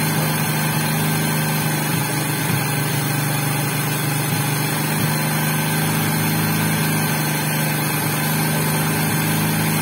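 Honda XRM125's single-cylinder four-stroke engine idling steadily while the carburetor's air adjustment screw is set for a smooth idle, after its clogged jet passages were cleaned.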